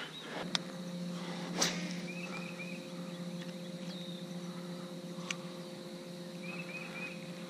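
Small boat's electric trolling motor humming steadily, with a few sharp clicks and a bird chirping a short run of notes twice.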